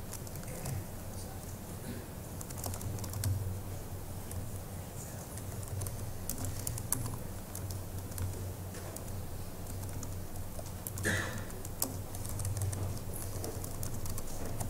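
Irregular keystrokes on a MacBook laptop keyboard as terminal commands are typed, over a steady low hum.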